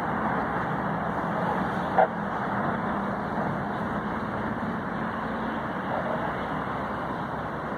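Steady rushing noise of rough sea surf and wind, with one brief knock about two seconds in.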